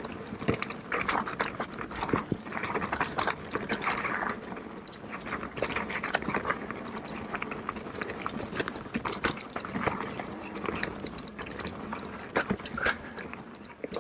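2022 Specialized Turbo Levo e-mountain bike rattling over a rooty trail: a steady, irregular run of knocks and clicks from the tyres, chain and frame.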